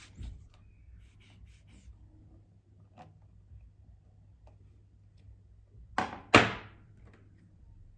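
Two sharp clacks of objects being handled, close together about six seconds in, the second louder, amid faint rubbing and small clicks over a low hum.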